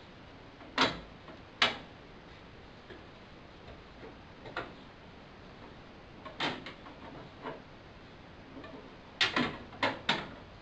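Aluminum windshield trim strip clicking and knocking against the windshield opening and rubber seal as it is pressed into place by hand. Scattered sharp clicks: two near the start, a few lighter ones in the middle, and a quick run of four near the end.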